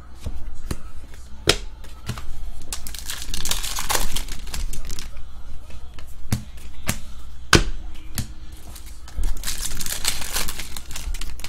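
Hockey trading cards flicked and shuffled one at a time in the hands, giving a string of sharp snaps and paper rustling. Near the end a card pack wrapper is torn open with a longer crinkling rip.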